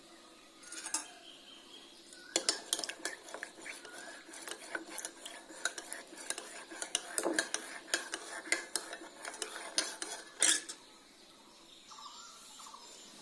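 A spoon stirring a drink in a ceramic mug, clinking quickly and repeatedly against the mug's sides. It starts a couple of seconds in, runs for about eight seconds and ends with one louder clink.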